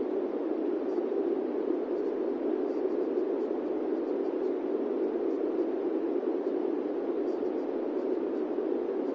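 Steady white-noise hiss, heaviest in the low mids and unchanging throughout, used as a masking bed over quiet subliminal text-to-speech affirmations that show only as faint high flickers.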